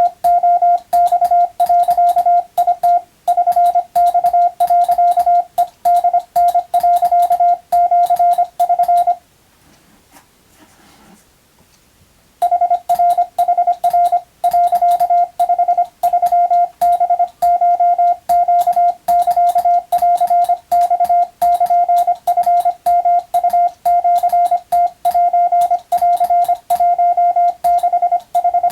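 Morse code (CW) tone of about 700 Hz keyed in dots and dashes, sending Japanese wabun telegram text. The keying stops for about three seconds a third of the way in, then carries on.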